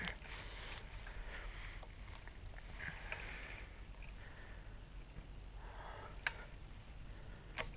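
Soft rustling of dry grass and clothing as a prone hunter shifts behind a rifle, with two sharp clicks, one about six seconds in and one near the end.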